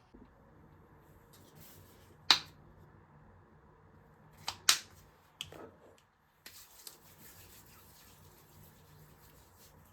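A few sharp clicks and taps of handling over quiet room noise: the loudest about two seconds in, a quick pair near the middle, and smaller ones later. The background cuts out briefly a little past halfway.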